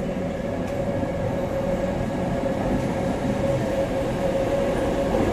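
rapidKL Kelana Jaya Line LRT train pulling in alongside the platform: a steady whine over continuous rolling noise, growing slowly louder as it comes in.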